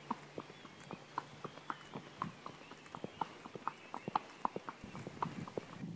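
A horse's hooves clip-clopping on a paved lane at a walk: a steady run of sharp hoofbeats, about three a second.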